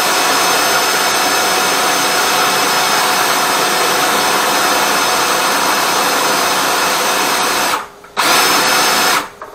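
Power drain-cleaning machine running steadily while clearing a kitchen sink drain clogged with grease. It cuts off near the end, runs again for about a second and stops.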